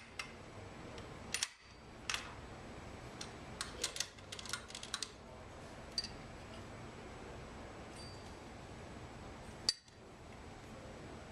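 Metal clicks and clinks of a tri-clamp being fitted and closed around a joint of a Sentry B1 bulk solids sampler: a cluster of sharp taps over the first five seconds, then a few isolated ticks and one louder click near the end.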